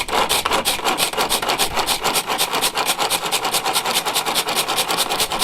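Rapid, even scraping strokes, about seven or eight a second, of food being worked with a small hand-held kitchen tool.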